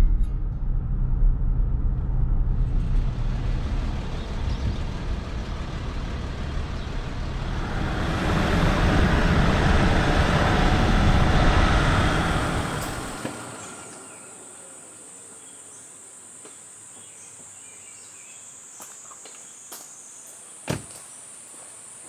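Land Rover Discovery 4 driving on a country road, heard from inside the cabin: steady road and wind noise that swells for a few seconds and then fades out about thirteen seconds in. After that, a steady high insect chorus, with a sharp knock near the end.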